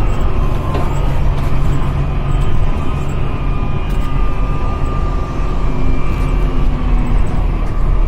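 MAN Lion's City NG313 articulated diesel bus with a Voith automatic gearbox driving along, heard from inside the passenger cabin. A steady low engine drone runs throughout, with a whine over it that shifts slightly in pitch.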